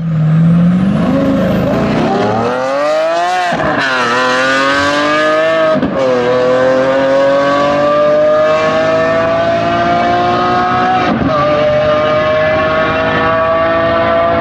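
Two supercars launching flat out and accelerating hard: a Lamborghini Aventador SVJ Roadster's naturally aspirated 6.5-litre V12 and a Bugatti Chiron Sport's 8-litre quad-turbo W16. The engine note climbs steeply, drops at upshifts about three and a half, six and eleven seconds in, and climbs again after each shift. The loud V12 echoes off the surrounding mountains.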